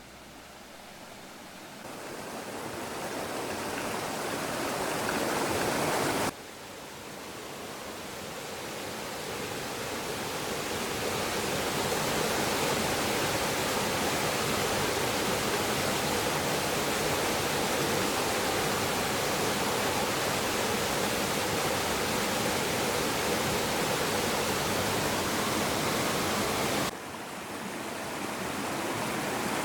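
Water rushing in a steady wash of noise, as from a stream pouring through a small dam. It swells gradually, breaks off abruptly twice, and each time builds back up.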